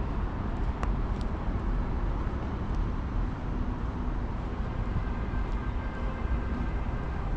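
Steady city street ambience dominated by the low rumble of passing road traffic.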